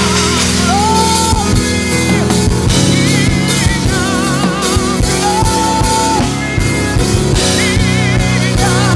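Live gospel worship band playing: drum kit with cymbals, sustained keyboard and bass chords, and singers holding long notes with vibrato.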